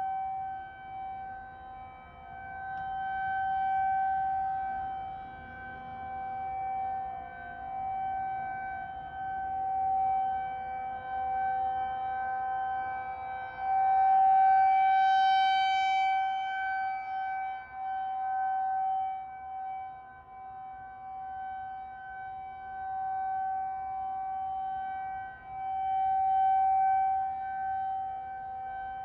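Federal Signal 2001 rotating tornado siren sounding one steady single-tone wail at a fixed pitch. Its loudness swells and fades every several seconds as the rotating horn sweeps toward and away from the listener.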